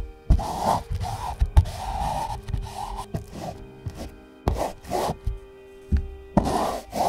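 Paintbrush loaded with acrylic paint stroking across stretched canvas: a series of short scratchy strokes, with a couple of sharp taps, over soft sustained background music.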